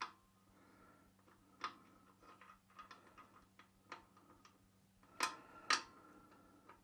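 Scattered small metallic clicks and taps from screws being handled and fitted at a steel oil-burner mounting flange. Two louder clicks come about five seconds in.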